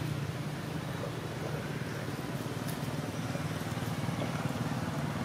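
An engine running steadily, a low hum with a fast flutter.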